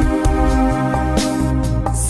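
Music: sustained chords over a regular low beat.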